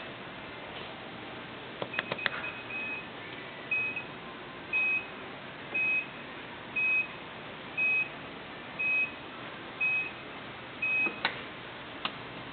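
Nissan Quest minivan's power liftgate closing: a few clicks as it starts, then a short high warning beep about once a second while it lowers, ending with a latch click as it shuts.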